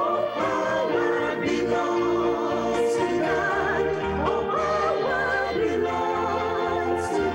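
Mixed choir of men and women singing a gospel song with vibrato over instrumental accompaniment.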